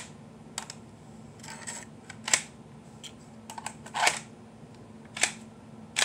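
Lego-brick toy pistols being handled: a string of sharp plastic clicks and clacks at irregular intervals, the loudest about two, four and five seconds in.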